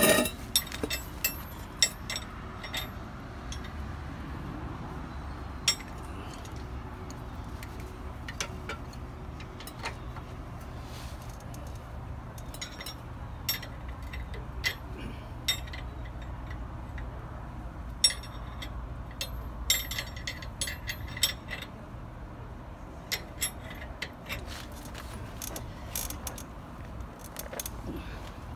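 Scattered metallic clicks and clinks of a wrench and hand tools working on a truck's rear suspension bolts, coming in short clusters over a low steady rumble.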